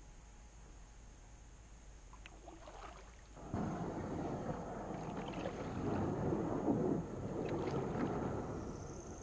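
Kayak being paddled and turned in shallow water: water splashing and rumbling against the hull. It comes in suddenly about three and a half seconds in, after a quiet start with a few light knocks.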